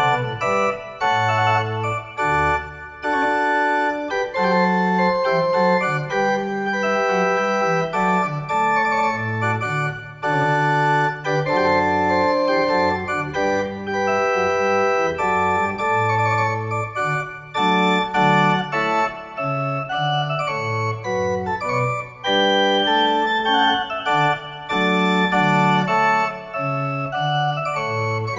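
Small wooden chamber pipe organ playing a piece in several parts: steady held notes over a bass line that steps from note to note, with short breaks between phrases.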